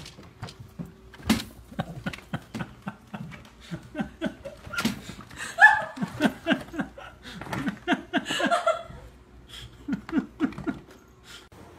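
Repeated bursts of laughter in quick ha-ha-ha runs, heard several times, over scattered knocks and rattles of toys being shifted about in a plastic toy chest.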